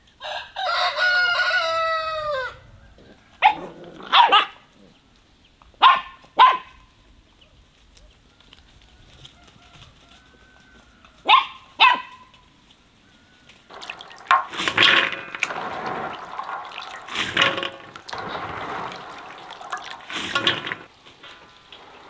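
A rooster crows once, then a dog barks in quick pairs several times. Near the end comes several seconds of noise that swells and fades.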